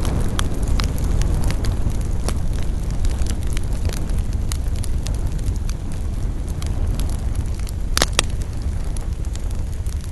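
Campfire burning: a steady low rush of flames under frequent small crackles of burning wood, with one louder pop about eight seconds in.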